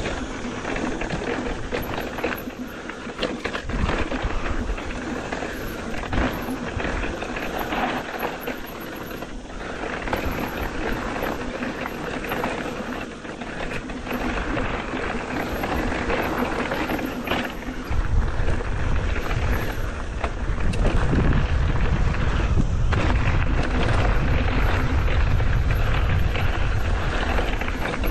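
Mountain bike descending a rocky trail: the tyres running over stones and the bike rattling, with many sharp knocks. About two-thirds of the way in, a heavy low rumble of wind on the microphone sets in and stays.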